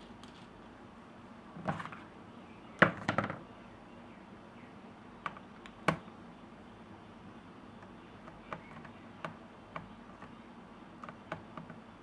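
Scattered clicks and knocks from an Asus Eee PC 900HA netbook's case and parts being handled, the loudest a short burst of knocks about three seconds in, then lighter single clicks and ticks.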